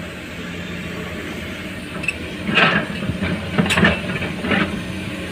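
Heavy diesel machinery running steadily, with three bursts of loud metallic clanking and rattling in the middle.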